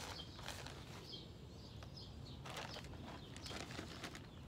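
Small birds chirping over and over in the background. About halfway through, plastic bags of garden soil amendments crinkle as they are handled and poured.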